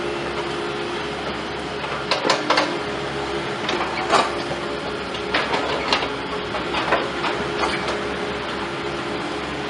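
Heavy machinery, most likely an excavator, running steadily, with a series of sharp metallic clanks and knocks scattered through it, several in quick succession about two seconds in and again around five to six seconds in.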